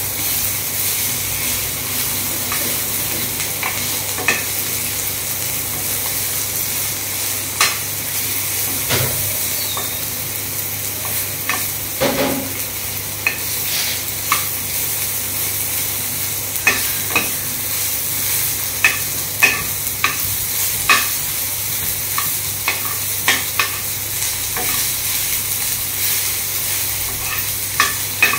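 Chopped vegetables sizzling in oil in a frying pan, with a spoon scraping and clicking against the pan as they are stirred. The clicks come irregularly and more often in the second half.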